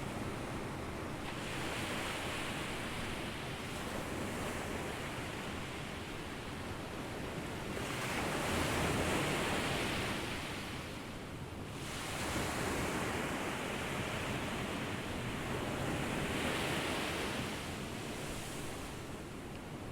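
Ocean surf breaking and washing up a beach, swelling and ebbing in several surges, the strongest about eight to eleven seconds in.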